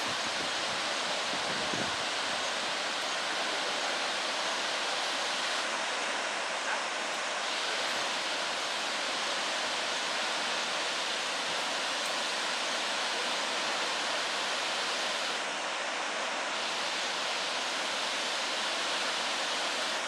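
Girmal Falls' two cascades plunging into the pool below: a steady, even rush of falling water.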